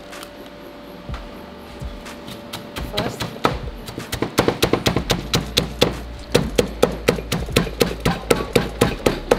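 Wooden pestle pounding chilies and garlic in a clay mortar, Thai krok style, for an Isan cucumber salad. A few soft knocks at first, then from about three seconds in a quick, steady pounding of about four strokes a second that grows louder.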